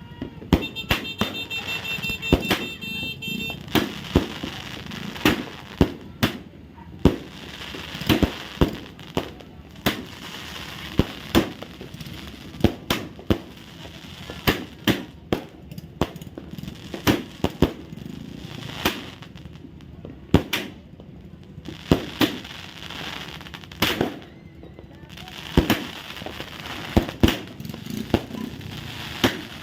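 Fireworks and firecrackers going off: a long run of sharp bangs at uneven spacing, sometimes several a second, over a constant crackling background. A high pulsing tone sounds for about three seconds near the start.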